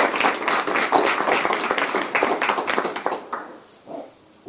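A small group of people clapping by hand in applause, dying away about three seconds in.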